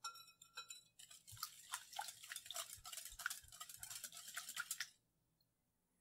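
Wire whisk beating an egg-and-milk batter in a glass bowl: a few taps at first, then quick, even whisking strokes for about four seconds, stopping about a second before the end.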